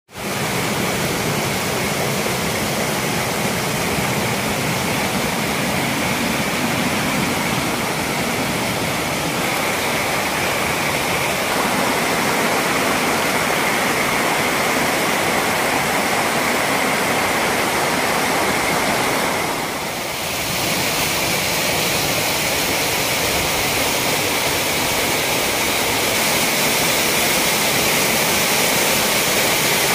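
Small forest waterfall cascading over rocks close by, with a loud, steady rush of falling water. The rush dips briefly about two-thirds of the way through.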